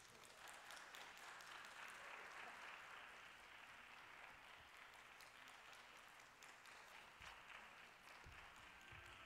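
Faint audience applause, many hands clapping steadily.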